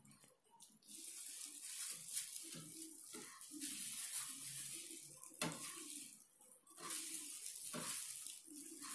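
Disposable plastic gloves rustling and crinkling as hands press and pat a fish fillet into a dry crumb coating of ground seeds, in hissy stretches, with one sharp tap about five and a half seconds in.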